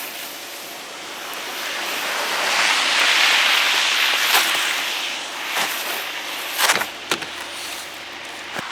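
A vehicle passing on the street: tyre and road noise swells over a couple of seconds and fades away. Several sharp clicks or knocks follow near the end.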